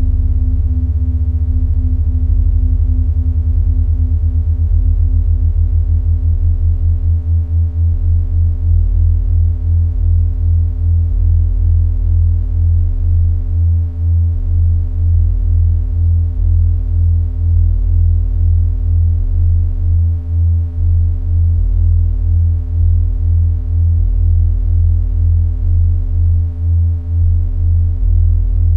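Minimal electronic drone music made of pure, sine-like synthesizer tones: a deep bass tone pulses in a slow, even throb under steady held higher tones. In the first few seconds several of the higher tones glide in pitch and settle.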